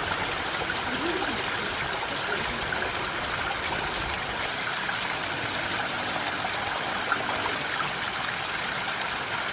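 Mountain stream flowing steadily.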